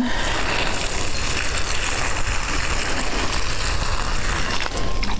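Water pouring steadily from a watering can onto garden plants, stopping shortly before the end, over a low rumble.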